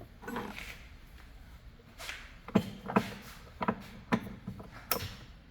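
A handful of sharp clicks and knocks, about six spread over a few seconds, from trimmer parts and tools being handled during disassembly.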